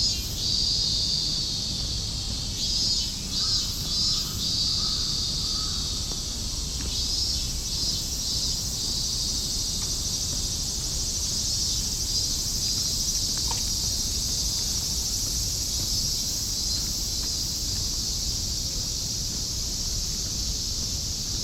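Cicadas singing in a steady, high-pitched chorus, pulsing for the first few seconds and then running on as a continuous drone.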